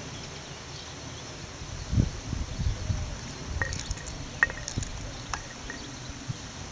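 Wind buffeting the microphone in uneven gusts, with a loud bump about two seconds in, and a scatter of small sharp clicks and ticks around the middle.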